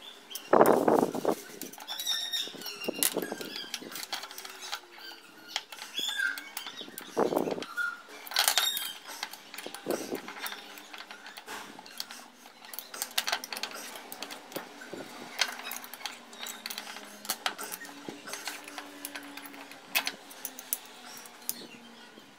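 Hand assembly of a steel bolt-and-plate magnetic welding square: a wrench turning nuts on bolts, with irregular small metal clicks and clinks and a few duller handling thumps.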